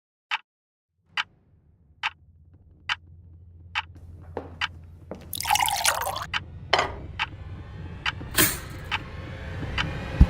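Water dripping steadily, a little more than once a second, as a low rumble builds up beneath it. From about halfway through, louder splashing and knocks join in.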